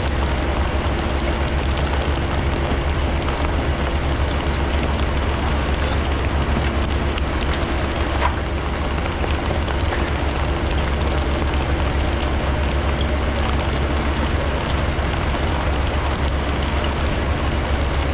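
Fishing boat's engine running steadily with an even, low drone.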